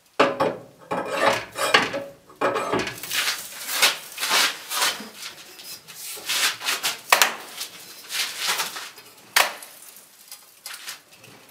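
Manual sheet-metal bending brake folding a 2 mm steel blank: a run of irregular metal clanks and scraping as the blank is set in and the lever is pulled up to bend it.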